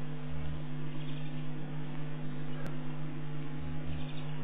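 Steady electrical hum from the wildlife camera's audio feed, over a constant hiss of background noise. A single sharp click comes about two-thirds of the way through.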